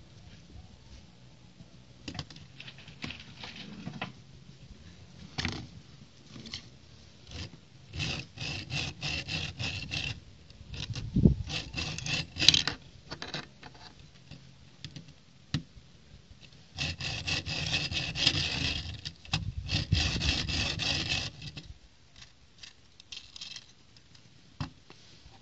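MGB Megabo brick-built mortar vehicle toy handled and moved on a wooden tabletop: scattered plastic clicks, with two stretches of rapid, dense clicking a few seconds long, about a third of the way in and again past two-thirds.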